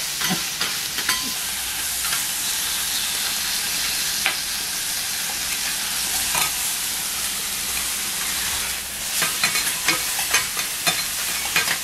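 Food sizzling steadily on a hot iron teppan griddle, with metal spatulas scraping and tapping on the plate; the taps come thick and fast in the last few seconds.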